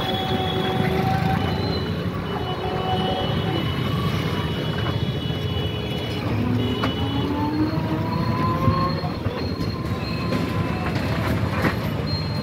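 Busy street traffic heard on the move: a steady rumble with thin, high squealing tones that come and go, and a whine that rises in pitch about halfway through.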